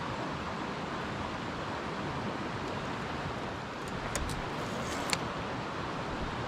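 A steady rushing hiss of outdoor background noise, with a few sharp clicks about four and five seconds in.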